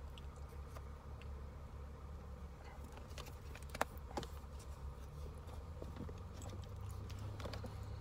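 Scattered light clicks and taps from handling a can of moist snuff and its lid while a pinch is taken and put in the lip, the sharpest a little under four seconds in, over a steady low hum inside a car.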